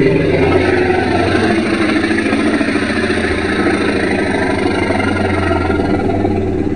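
Monster dinosaur sound effect: a long, low, steady growl with a fast rattle running through it.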